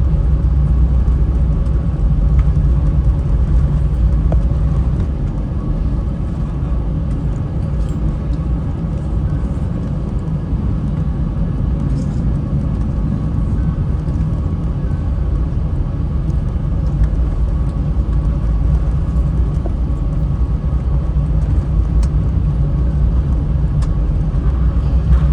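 Steady low rumble of Airbus A321 engine and airflow noise heard inside the passenger cabin.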